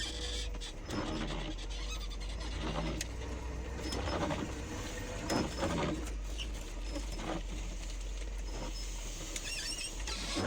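A vehicle engine running with a steady low rumble, with scattered short knocks and rattles.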